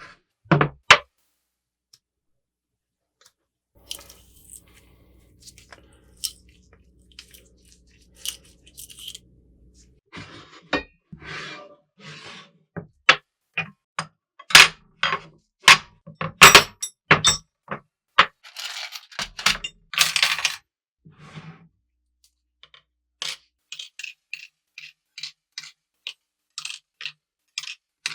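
Metal parts of an antique french fry cutter clinking, knocking and scraping as they are handled: a dense run of sharp knocks through the middle, lighter clicks toward the end, and a faint low hum for several seconds near the start.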